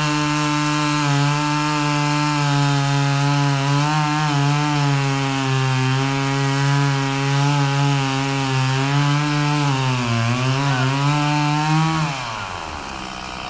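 Gas chainsaw held at high revs while cutting into a dead white oak trunk, the pitch wavering and sagging briefly under load, then dropping to idle about twelve seconds in.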